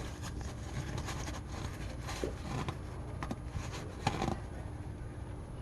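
Light, irregular clicks and rustling of hands screwing a new spin-on oil filter onto its mount, turned hand-tight.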